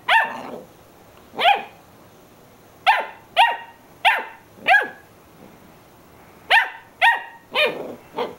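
Basset hound puppy barking: about ten short, high-pitched barks that come in uneven runs, with pauses of a second or more between them.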